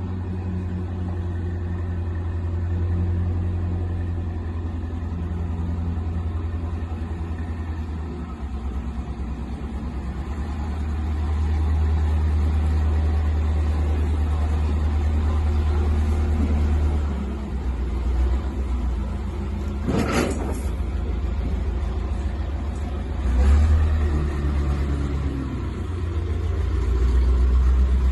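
Military wrecker truck's diesel engine running, its rumble rising and falling with load, with a brief sharp crack about two-thirds of the way through.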